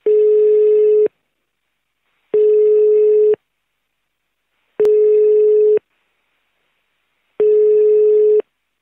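Telephone ringback tone of an outgoing call: a steady single-pitched tone, four rings of about a second each with pauses of about a second and a half, heard through the phone line.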